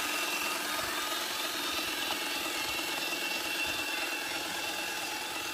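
Scale RC JCB 3CX backhoe loader's electric hydraulic pump and drive motors running with a steady high whine over a hiss, as the front loader bucket lifts a rock.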